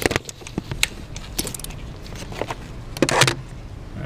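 Hands fitting a high-pressure fuel pump onto the engine, metal parts clicking, knocking and rubbing, with a louder clatter about three seconds in.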